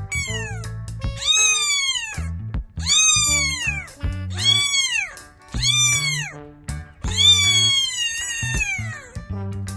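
Young tabby kitten meowing repeatedly: about six high cries, each rising then falling in pitch, the last one the longest. Background music plays underneath.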